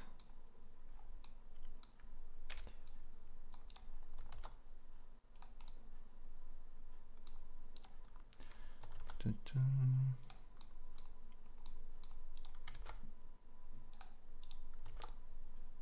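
Computer keyboard keystrokes and mouse clicks, scattered and irregular, while keyboard shortcuts are used in 3D modelling software. A short low hum about ten seconds in.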